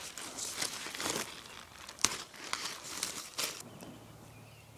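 Dry crinkling and crackling of dry plant matter, an irregular run of crackles that stops about three and a half seconds in.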